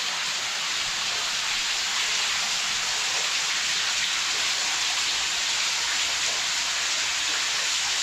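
Small waterfall inside a rocky cave-gorge, its water falling into a pool as a steady, even hiss.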